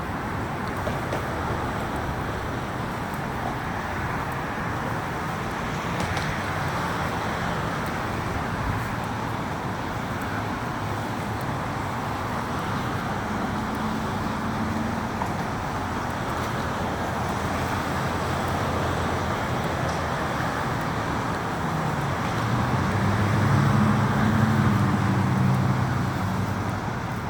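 Steady road traffic noise with vehicles driving past, one passing louder about three-quarters of the way through.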